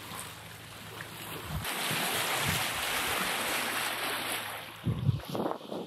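Sea water rushing and splashing along a sailing yacht's hull as it moves through the water, swelling about two seconds in. A few gusts of wind buffet the microphone near the end.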